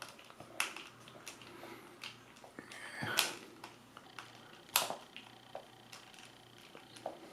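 Scattered small clicks and knocks from handling the plastic-bodied power plug and the screwdriver on a workbench, with the sharpest click a little before five seconds in.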